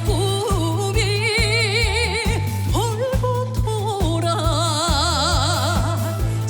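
A singer holding long notes with wide vibrato, without clear words, over a band backing with bass and a steady drum beat.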